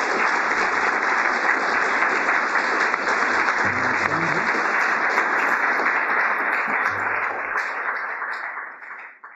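Audience applauding steadily, fading out about eight seconds in and then cutting off.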